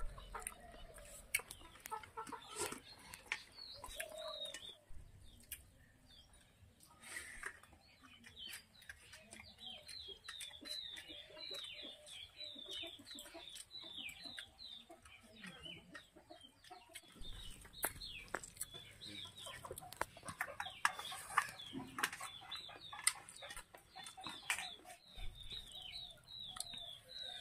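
Chickens calling: a run of short, high, falling peeps repeated over and over, with clucking and scattered clicks and knocks.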